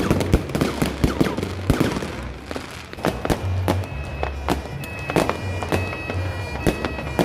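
New Year's fireworks going off in a rapid run of bangs and crackles. From about three seconds in, music with sustained high notes and a pulsing low beat plays under the explosions.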